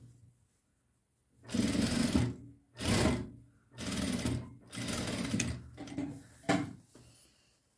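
Jack industrial lockstitch sewing machine stitching in several short bursts, stopping and starting again between them.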